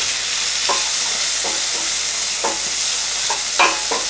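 Diced courgettes and peas sizzling steadily in olive oil in a metal pan over medium heat, while a wooden spatula stirs them. The spatula scrapes and knocks against the pan about six times, the loudest stroke a little over three and a half seconds in.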